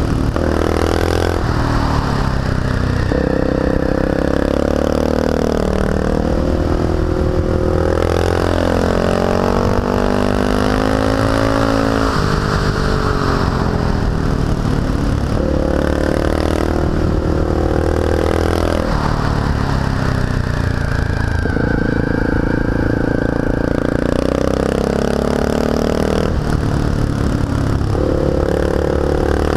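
Honda XR650L's single-cylinder four-stroke engine under way, its pitch rising and falling again and again as the rider gets on and off the throttle through a run of curves. Wind rushes past the helmet-mounted microphone.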